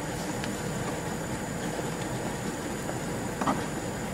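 Coconut oil sizzling steadily under a glass lid in a pan on a hot stove, with three test popcorn kernels in it that have not popped yet. A single brief knock about three and a half seconds in.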